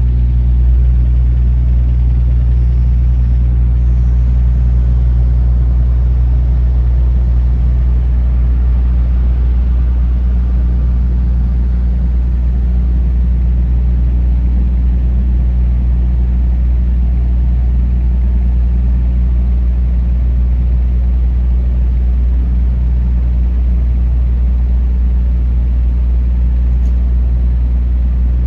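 Steady low drone of a large engine running at a constant idle, a deep even hum that holds unchanged throughout.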